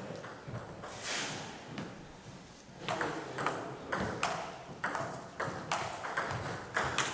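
Table tennis rally: the celluloid ball clicking off the bats and table in quick alternation, about three hits a second, starting some three seconds in.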